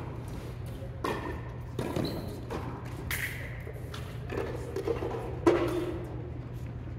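Scattered knocks and thuds echoing in a large indoor tennis hall, the loudest about five and a half seconds in, over a steady low hum.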